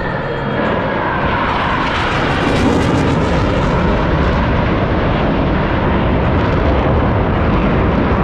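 Loud jet aircraft noise from the Blue Angels' F/A-18 Super Hornets. A tone falls in pitch over the first couple of seconds, then the roar swells louder and brighter about two seconds in and holds steady.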